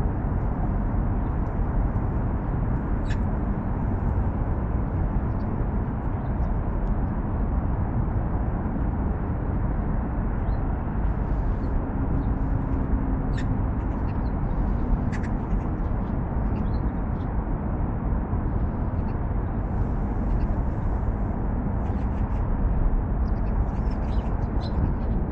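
Steady low rumble of road-bridge traffic, with short bird calls scattered through.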